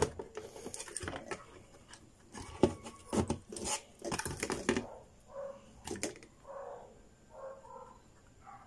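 Handling clatter of a TV circuit board being lifted and turned over against the TV's sheet-metal chassis: several sharp knocks and taps in the first five seconds. Later, a few faint short pitched sounds come about once a second.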